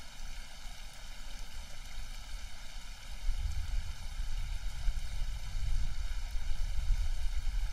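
Steady hiss of water spilling over a small concrete weir, recorded through an iPhone lightning microphone. Under it is a low rumble that grows stronger about three seconds in.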